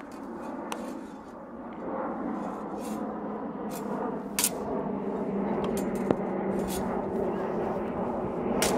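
Steel practice longswords clashing during sparring: a handful of sharp metallic clacks as the blades meet, the loudest about four and a half seconds in, over a steady background hiss.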